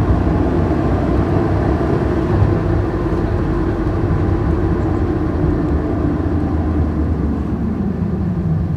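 Car driving: a steady engine and road rumble, fading slightly toward the end.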